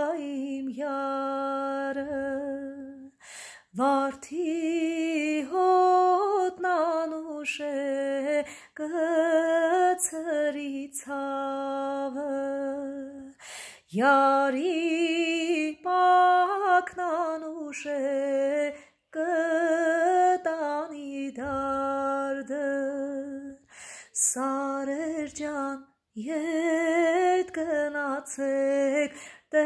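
A woman singing a slow Armenian song unaccompanied, in long held notes with a wavering vibrato. The phrases last a few seconds each, broken by short breaths.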